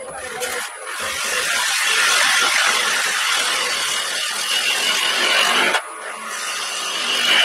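A turning gouge cutting into a spinning end-grain wood blank on a lathe: a continuous scraping hiss of the cut. It breaks off briefly about three-quarters of the way through, then resumes.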